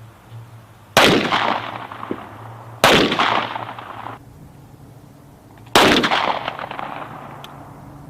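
Three 9 mm shots from M17 service pistols on an outdoor firing range, about one, three and six seconds in, each sharp crack echoing away over about a second.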